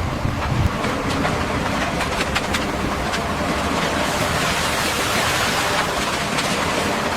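Heavy machinery running steadily, a dense mechanical noise with scattered light clanks and clicks.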